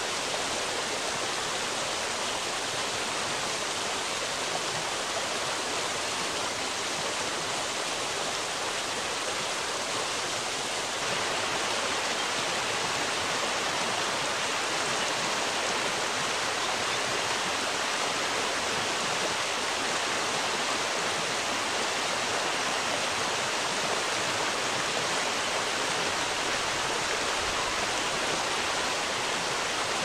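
Steady rush of flowing river water, a little louder from about eleven seconds in.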